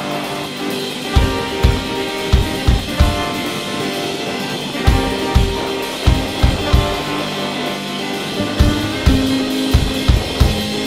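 Background music: a song driven by a drum kit, with a kick drum thumping in a steady beat under sustained pitched notes, and the drums pausing briefly a few seconds in.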